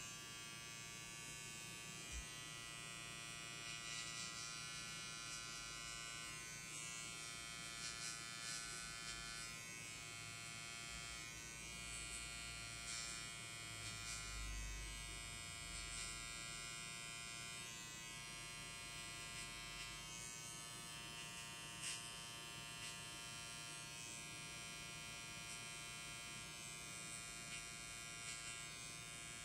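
Electric hair clipper buzzing steadily while it cuts hair on top of the head, with a few faint clicks along the way.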